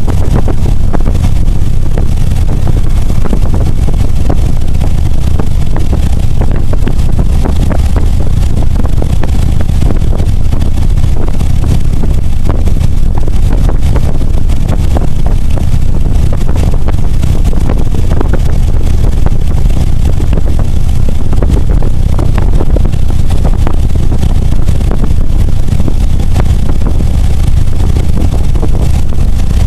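Motorcycle engine running at a steady cruising speed with a constant low note, mixed with wind rushing over the microphone.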